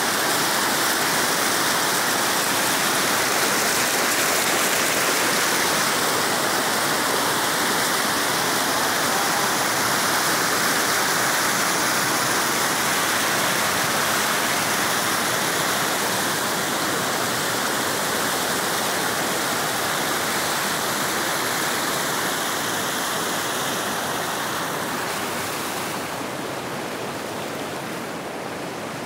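Brown floodwater rushing and churning over the spillway of an old dam reservoir that is overflowing. A steady, loud rush that eases off somewhat near the end.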